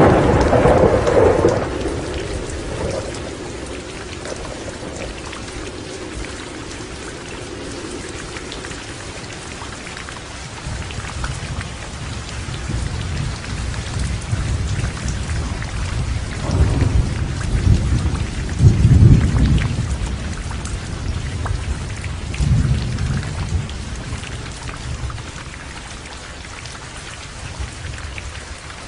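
Heavy rain falling steadily, with thunder rumbling through it. A loud thunderclap right at the start fades away over several seconds. A second long rumble builds and peaks past the middle, and a smaller roll follows shortly after.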